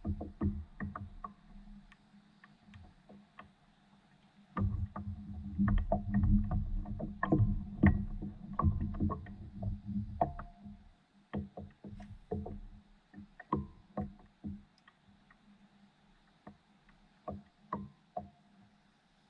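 Small knocks and taps on a fishing paddleboard with water lapping against its hull. A louder, busier stretch of low rumbling and knocking runs from about four and a half to eleven seconds in, then scattered taps.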